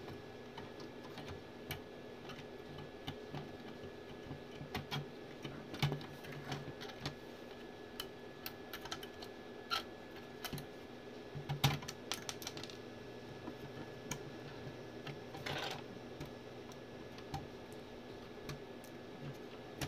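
Scattered small clicks and taps of plastic and metal as the M-Audio Fast Track Pro interface's plastic case and front-panel circuit board are handled, with a louder knock about twelve seconds in. A steady low hum runs underneath.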